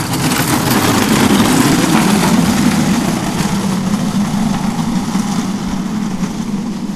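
Soapbox cart's hard wheels rumbling steadily on asphalt as it is pushed off and rolls downhill, building over the first couple of seconds and then easing slowly.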